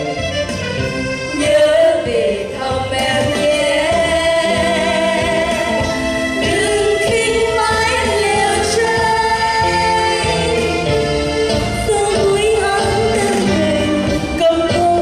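A song: a singing voice with vibrato carrying the melody over instrumental accompaniment.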